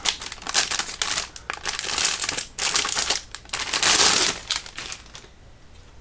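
Packaging crinkling and rustling in irregular bursts while a motherboard box is unpacked, the heaviest burst about four seconds in.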